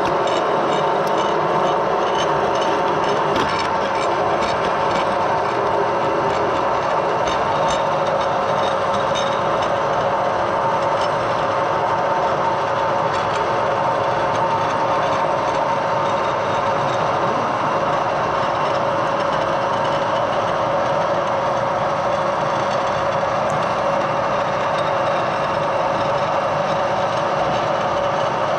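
Edgwick metal lathe running steadily under power feed on a screw-cutting pass, with its gear train giving a constant whine as the tool cuts an Acme thread into a steel lead screw.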